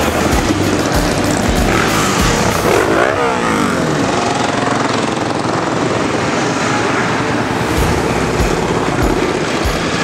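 A procession of motorcycles riding past with engines running. One passes close about three seconds in, its engine note falling as it goes by.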